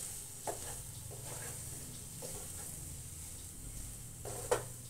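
Wooden spatula stirring and scraping boiled green peas and masala around a non-stick kadhai, over a steady soft sizzle of the frying. There are a few scraping strokes, the loudest near the end.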